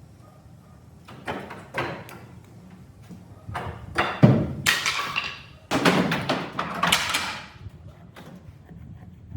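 A run of knocks and thuds, with two longer scraping noises in the middle of it.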